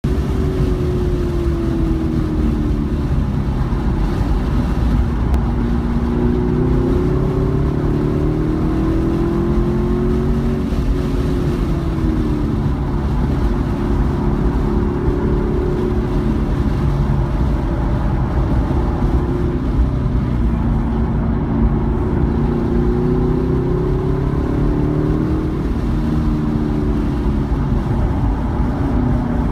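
A 2017 Chevrolet Camaro SS's 6.2-litre V8 under hard track driving, heard from inside the cabin. Its pitch repeatedly climbs under acceleration and drops under braking and gear changes, over a steady low rumble.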